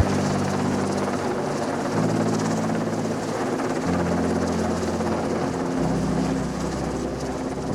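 Super Puma twin-turbine helicopter in flight: steady rotor and turbine noise.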